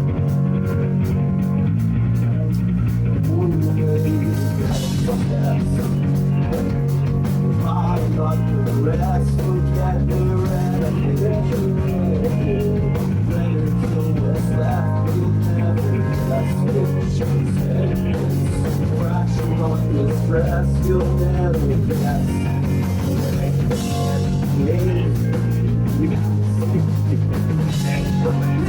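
Live rock band playing an instrumental passage: electric guitars, bass guitar and a drum kit.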